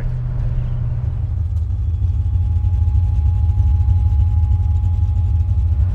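Car engine running with a steady low rumble that gets louder and slightly deeper about a second and a half in. A thin steady whine joins it about two seconds in.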